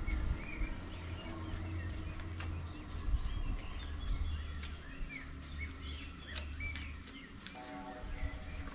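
Songbirds chirping and twittering in short, scattered calls over a steady high hiss and a low outdoor rumble.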